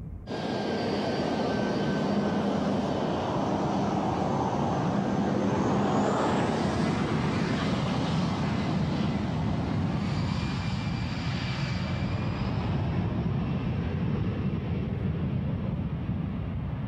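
A Boeing 737's twin turbofan engines running loud at high power as the airliner rolls along the runway: a steady jet rush with high whining tones, one of which rises in pitch about six seconds in.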